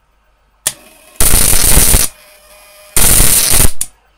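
High-voltage sparks from a homemade ignition-coil taser driven by a buzzing self-oscillating relay: two loud bursts of rapid crackling arcs, each under a second long, with a sharp click before and after. The bursts cut off as the 12-volt power supply keeps tripping under the load.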